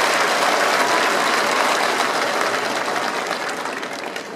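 A large crowd applauding at the close of a flag casting, the clapping dying away steadily over the last couple of seconds.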